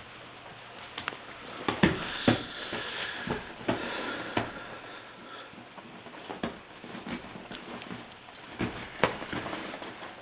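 A Weimaraner moving about on a leather sofa: scattered knocks, scuffs and rustling as it climbs around and turns on the cushions, with the loudest knocks about two seconds in and again near the end.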